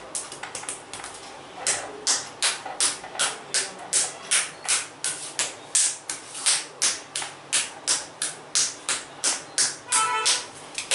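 Hands striking a person's back in percussive massage strokes (tapotement): quick light taps for the first second or so, then steady, sharp slaps at about two and a half a second.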